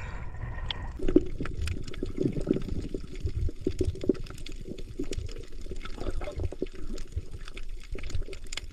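Sea water splashing at the surface, then muffled underwater sound from about a second in as the camera goes under: a dull low rush full of small clicks and gurgles.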